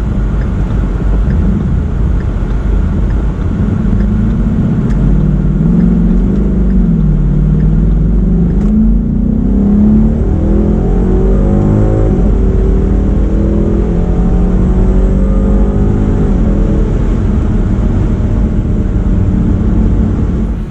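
Car engine running loudly with a deep rumble, its pitch rising and falling as it revs and accelerates, then cutting off suddenly at the end.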